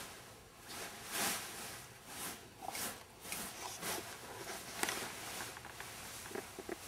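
Rustling of a very full ball gown's skirt, with its tulle, lining and petticoat over a hoopskirt, as it is moved and smoothed by hand: several soft swishes with a few light ticks.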